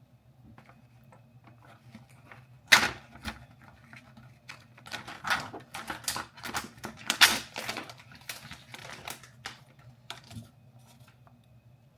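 Irregular sharp clicks and knocks of kitchen utensils and dishes being handled. They start about three seconds in, are densest in the middle and thin out near the end, over a steady low hum.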